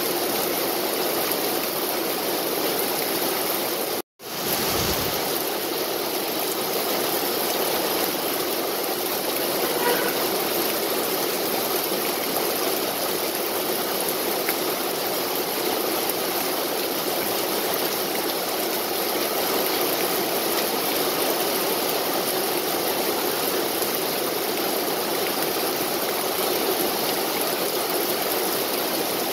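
Steady rain falling on leafy trees and grass, an even hiss of drops. The sound cuts out completely for a split second about four seconds in, then resumes.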